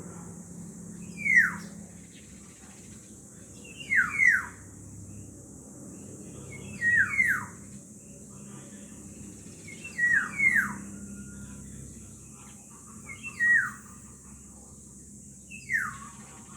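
Black-naped oriole calls: a loud whistled note that slides sharply downward in pitch, some given as a quick double note, repeated about every three seconds, six times. A faint steady high-pitched hiss runs underneath.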